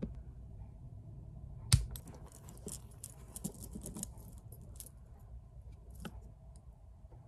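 A sharp knock on the desk, then small crystal pendants clinking together in a clear plastic bag, with the bag crinkling as it is handled for a few seconds.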